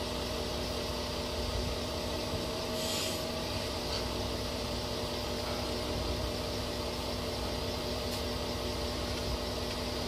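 Engine of heavy construction machinery idling steadily, a constant hum over a low rumble, with a brief hiss about three seconds in.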